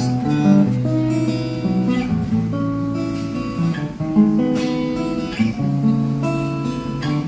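Acoustic guitar strumming chords in a slow, steady pattern, with no voice over it.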